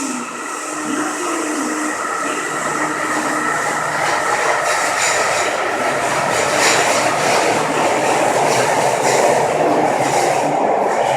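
Yokohama Municipal Subway 10000-series linear-motor train pulling out of the station. Its motor whine and wheel and rolling noise grow steadily louder as it gathers speed.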